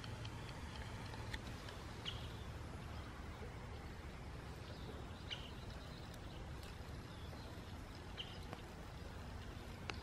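Faint scattered clicks and rustles of a tortoise crawling through grass and dry stems, over a steady low rumble, with a few short high chirps.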